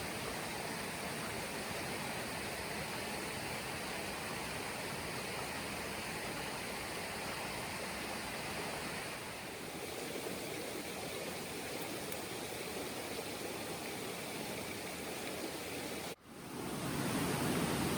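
Steady rushing of flowing stream water. It cuts out for an instant near the end and comes back louder and fuller.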